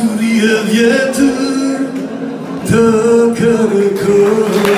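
A man singing an Albanian song live into a handheld microphone, amplified through a PA speaker, holding long notes that waver in pitch. The singing gets louder a little past halfway.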